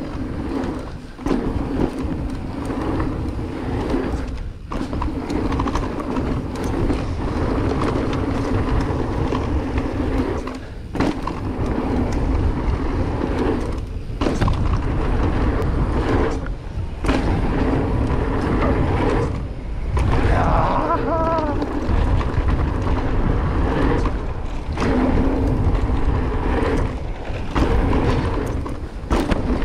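Electric mountain bike riding fast down a dirt trail: knobby tyres rolling and rattling over the ground, with wind rushing over the action camera. A brief wavering squeal comes about twenty seconds in.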